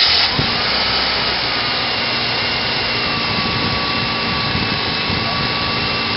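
Car engine running steadily at idle just after starting off a supercapacitor bank in place of its battery, a little louder for the first half second before settling; the alternator is charging the bank.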